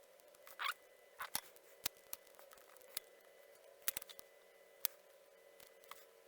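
Scattered small clicks and a few short, squeaky scrapes from hand tools and parts being handled while soldering a circuit board, over a faint steady hum.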